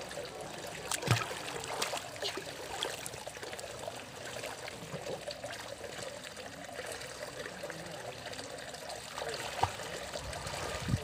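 Swimming-pool water sloshing and trickling as a small child in a life vest wades and kicks through it, with one sharper sound about a second in.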